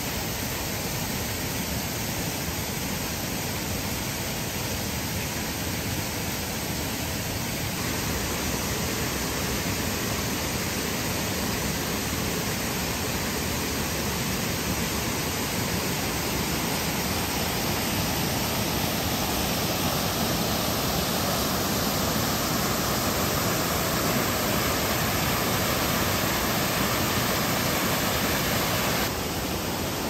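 Steady rush of a mountain stream pouring over rocks, growing a little louder in the second half.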